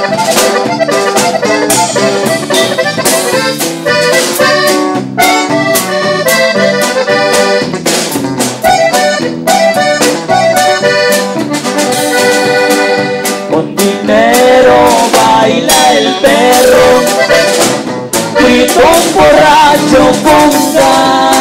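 Live band music led by a button accordion over a drum kit and keyboard keeping a steady beat. A voice sings or calls out over the band in the second half.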